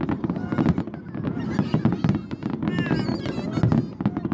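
Aerial fireworks going off in quick succession, dense crackling over low booms, with high voices from the watching crowd calling out over it.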